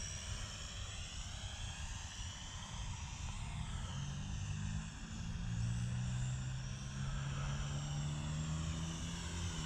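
SNAPTAIN SP500 quadcopter's four motors and propellers buzzing in flight. It is a stack of high tones that drifts up and down in pitch, with a low hum that grows a little louder about halfway through.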